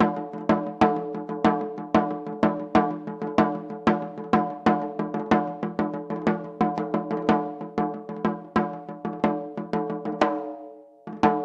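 Katsugi-oke daiko, the shoulder-carried Japanese barrel drum, playing a fast, driving rhythm of strikes over a steady pitched tone. Near the end it fades out for a moment and then comes straight back in.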